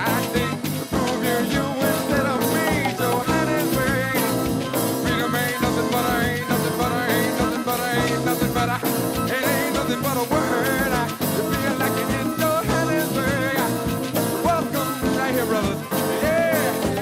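Soul-funk band playing an instrumental passage with a busy, steady beat and a gliding lead melody, with little or no singing.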